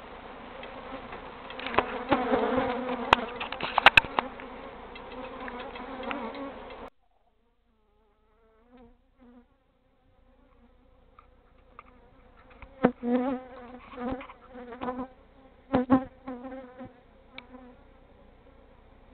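Honeybee colony opened up in a house wall, buzzing steadily; the bees are disturbed by the removal. Scattered clicks and knocks sound over the buzz, and the sound cuts out abruptly about seven seconds in, with the buzzing coming back about three seconds later.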